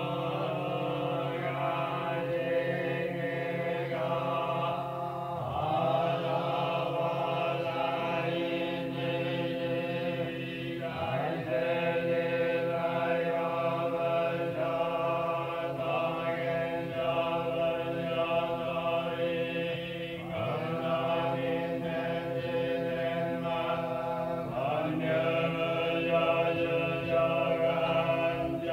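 Eerie horror sound effect: a sustained, chant-like droning pad of many held tones over a steady low hum, with a swooping slide in pitch about every five seconds.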